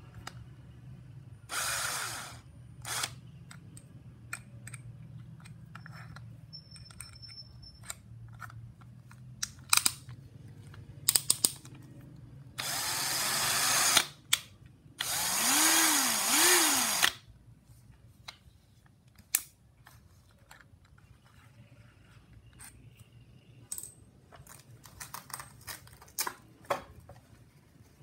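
Bosch GSB 180-LI 18 V cordless combi drill running in short trigger bursts: a brief spin about two seconds in, a longer run around the middle, then a run where the motor speeds up and slows down twice. Between the runs come scattered clicks as the drill is handled.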